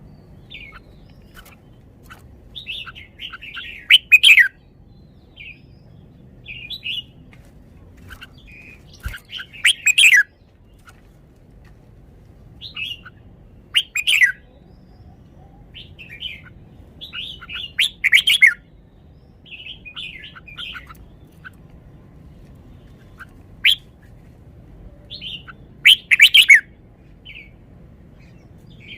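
Red-whiskered bulbul singing in short phrases of chirps and whistles, with loud bursts every few seconds and softer notes between.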